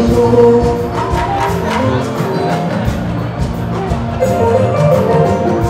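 Live fuji band music: percussion under held, pitched instrument notes.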